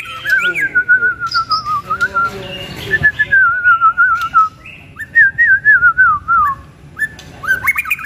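Clear, loud whistled song in three long warbling phrases, each quavering up and down and sliding gradually lower, with a few short rising notes near the end.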